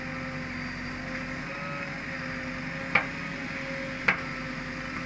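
JCB 3DX backhoe loader's diesel engine running steadily under hydraulic load as the backhoe bucket digs soil. Two sharp knocks about a second apart, around three and four seconds in.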